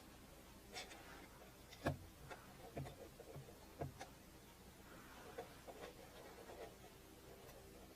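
Near silence with a few faint, irregular clicks and knocks, the loudest about two seconds in.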